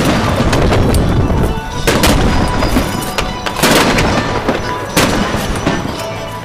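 Aerial firework shells bursting: several loud bangs about one every one to two seconds, with smaller crackling reports between them over a continuous low rumble.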